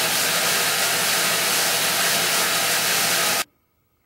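Homemade 2x72 belt grinder running: a steady, loud hiss of the belt over its wheels with a faint hum under it. It cuts off abruptly about three and a half seconds in.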